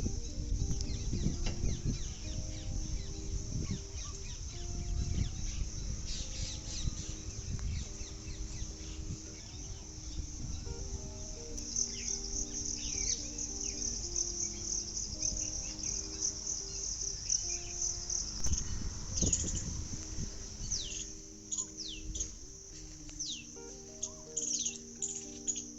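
Small birds chirping and calling, with a run of quick downward-sweeping calls near the end, over a steady high insect buzz. A soft, slow melody of sustained notes plays underneath.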